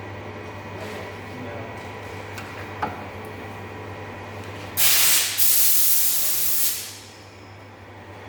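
Two loud hissing blasts from a spray or air jet, one short and one about a second and a half long, over a steady low hum.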